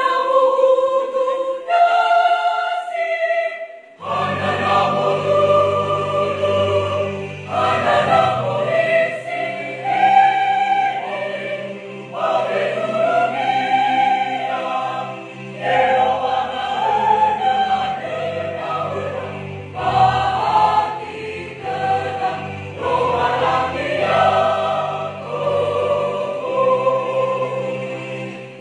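Mixed choir of men and women singing a hymn in parts under a conductor, in phrases with short breaks between them.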